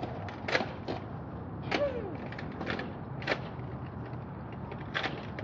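Nerf foam-dart blasters firing and being worked: about six sharp pops and clicks spread over several seconds, with a short falling cry about two seconds in.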